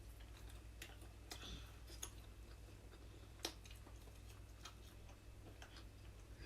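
Near silence: faint, scattered small clicks and ticks of eating at the table, one sharper click about three and a half seconds in, over a low steady hum.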